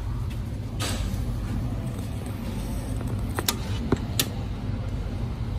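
Steady low hum inside a Sydney Metro train standing at a station platform, with a few sharp clicks and taps around the middle.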